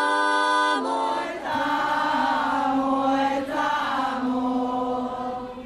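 Vocal music: a held sung chord that breaks off about a second in, then a choir chanting over a steady low held note.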